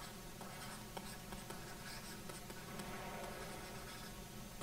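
Faint scratching and light taps of a stylus writing a word by hand on a pen tablet, over a steady low hum.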